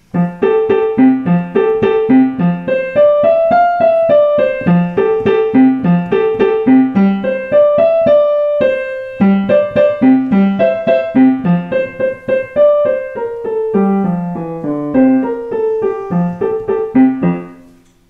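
Digital piano playing a simple beginner piece: a repeating low figure in the left hand under a plain right-hand melody in a steady rhythm, with a short break about halfway through, ending on notes that die away near the end.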